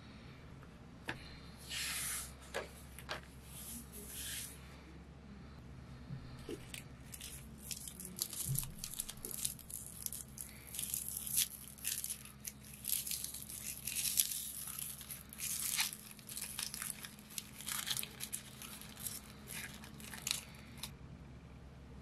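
Crinkly foil wrapper of a chocolate truffle being twisted and peeled open by hand: a dense run of crackling from about nine seconds in until near the end. In the first few seconds, a couple of soft swishes of paper from the journal's pages being handled.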